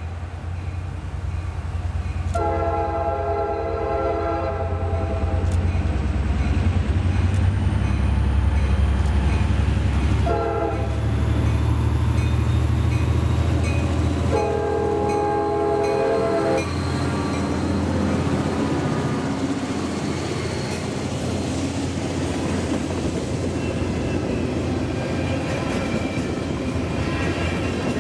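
Freight train's diesel locomotives approaching and passing with a low rumble, the lead unit sounding its air horn three times: long, short, long. Then the string of freight cars rolls by on the rails.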